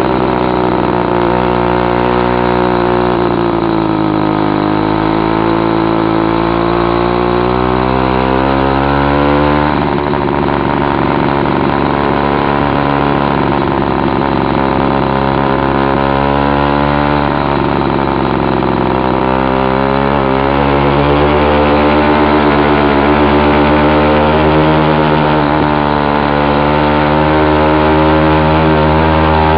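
Chinese two-stroke motorized-bicycle kit engine ('China girl') running loud under load with its muffler cap removed. Its note sags twice and picks up again as it pulls uphill.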